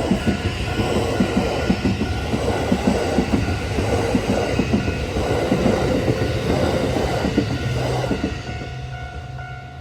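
Kintetsu 8A series and 1249 series electric multiple-unit train passing over a level crossing, its wheels clattering rhythmically over the rail joints. The crossing's warning bell rings in steady repeated pulses throughout. The train noise dies away about eight seconds in, leaving the bell.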